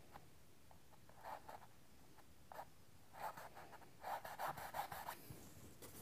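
Paintbrush strokes on canvas: short, scratchy brushes of bristle against the painted surface, a few spaced out, then a quick run of strokes about four seconds in.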